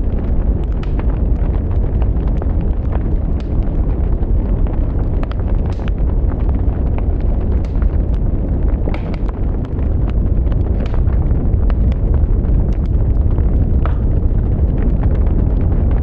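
Wood fire burning: a steady low rumble of flames with frequent sharp crackles and pops from the burning wood.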